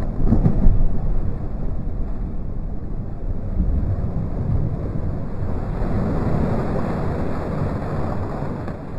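Water splashing and sloshing heavily as a person plunges into an inflatable paddling pool, slowed down into a deep, continuous rumbling wash. It is loudest about a second in and then runs on steadily.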